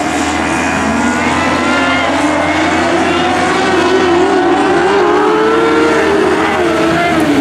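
Several compact speedcars' engines running together as the cars circle the track, their pitch wavering up and down.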